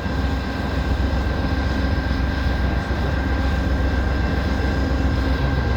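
Steady drone of a stopped diesel passenger locomotive idling, with a low, gusty wind rumble on the microphone.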